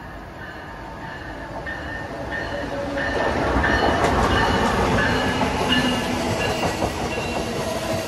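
A train going by on the tracks. Its noise builds to a peak about three to four seconds in, then eases a little.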